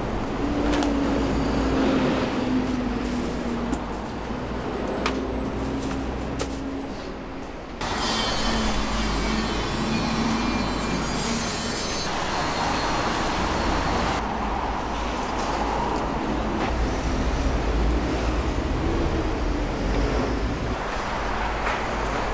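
Street traffic noise: a steady low rumble of vehicles, with a low engine hum wavering through the first several seconds. The sound changes abruptly about eight seconds in.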